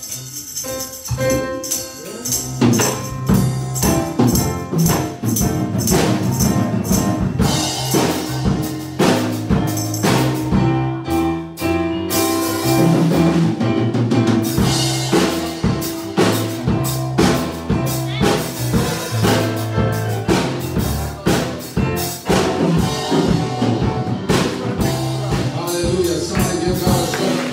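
Live church band playing an upbeat praise song on drum kit and electric keyboard, with a steady beat and a stepping bass line, growing fuller about two seconds in.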